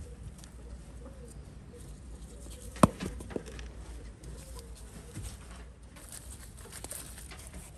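Doves cooing repeatedly in the background, with the handling of freshly picked eggplants over a wicker basket and one sharp knock about three seconds in.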